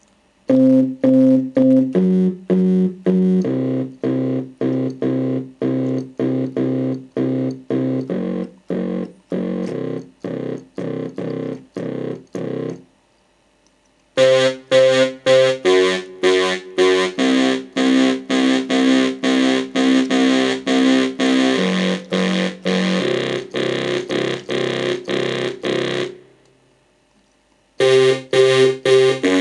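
Korg Kronos synth bass presets playing a staccato, repeating bass-line pattern of about three notes a second. It stops briefly twice, about 13 seconds and 26 seconds in, with the middle passage brighter and fuller.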